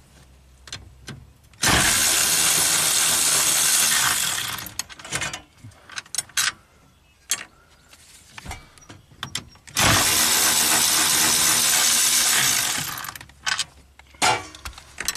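Cordless power tool running in two bursts of about three seconds each, spinning fasteners out of a hybrid battery pack's bus bar. Light clicks and clinks of metal come between the bursts.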